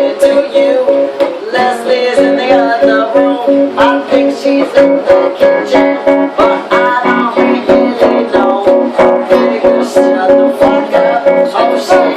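Music led by a plucked guitar, with a quick, steady beat.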